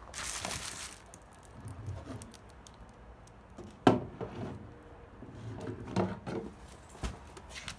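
Rustling, then scattered knocks and thumps of objects being moved or bumped, the sharpest knock about four seconds in.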